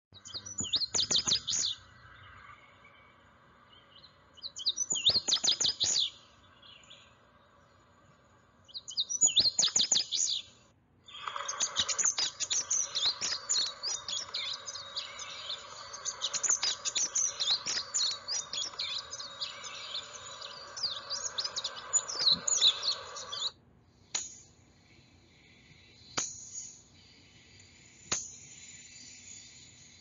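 Recorded indigo bunting song: short, high, quick-noted phrases about a second and a half long, repeated every few seconds. Then a longer, denser run of high chirping over a steady background hiss that cuts off suddenly, followed by a few faint clicks.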